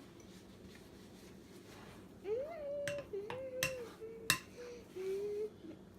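A young child whining in drawn-out, wavering sounds, starting about two seconds in, with several sharp clicks of a spoon knocking against a cup while batter is scooped.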